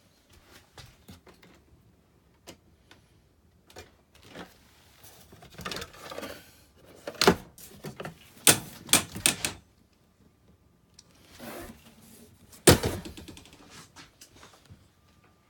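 A run of light clicks and knocks with several loud sharp bangs, one at a time, in the middle and near the end.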